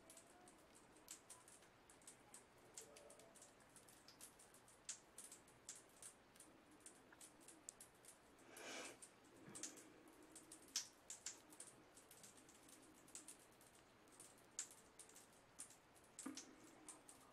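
Bath bomb fizzing in bath water: faint, irregular crackling and popping of tiny bursting bubbles, with a louder fizzing rush of about a second a little past halfway.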